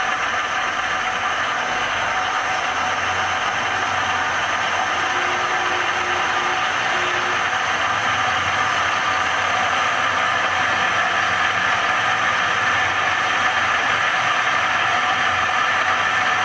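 CNC milling machine spindle running at about 1000 RPM while an end mill cuts a slot along a wooden board as the table feeds under power. A steady machine whir with a few high steady tones, a little louder in the second half.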